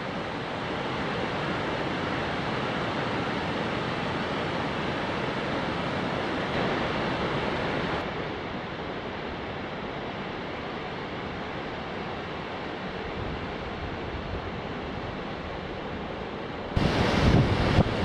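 Steady rush of running water: a waterfall, then, after about eight seconds, a stream pouring down the wooden chute of a water-driven grinding mill. About a second before the end it gets louder and rougher, with wind buffeting the microphone.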